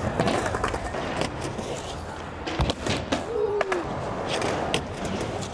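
Skateboard wheels rolling over the skatepark's surface, with several clacks of the board and a sharper knock about two and a half seconds in.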